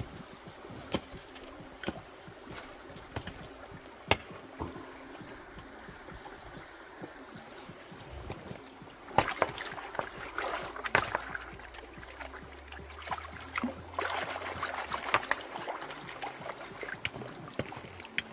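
Shallow creek water running over stones, with a few sharp clicks of stones knocking together. From about nine seconds in, a hand digging and scooping creek-bed gravel underwater makes louder splashing and stones clattering, in two spells.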